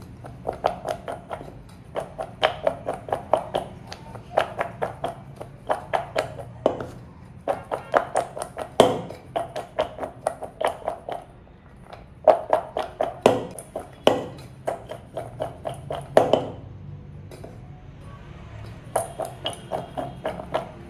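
Cornstarch-coated raw potato strips tossed in a stainless steel bowl, knocking against the metal in quick ringing taps, about three or four a second. The tossing comes in bursts, with short pauses and a longer pause about three-quarters of the way through.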